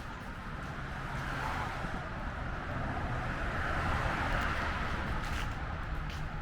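Road traffic on a nearby highway: a vehicle's tyre and engine noise swells to its loudest about four seconds in and then fades as it passes.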